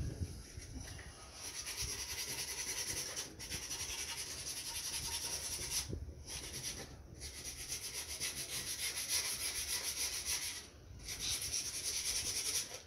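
Something being rubbed down by hand with quick, even back-and-forth strokes, a scratchy rasping that runs in stretches broken by a few short pauses.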